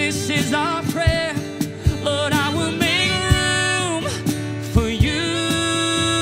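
Acoustic worship music: a woman singing over strummed acoustic guitar, with a cajon played with sticks keeping a steady beat of low thumps.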